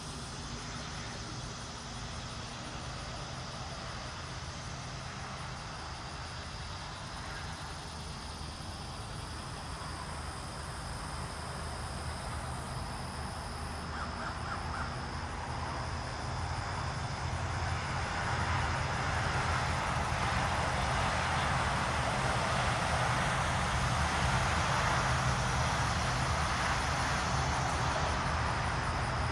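Distant BNSF freight train with diesel locomotives, approaching: a steady low engine hum under a rumble that grows louder through the second half.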